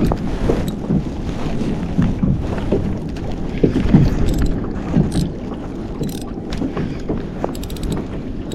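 Kayak on the water with wind buffeting the microphone, water sloshing and slapping against the hull, and a few light clicks in the second half.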